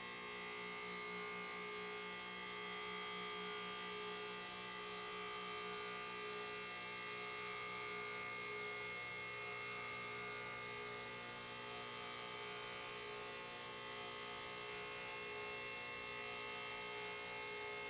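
Max Jax lift's electric hydraulic power unit running steadily, pumping the lift up under the weight of a car body: an even electric hum with a high whine on top.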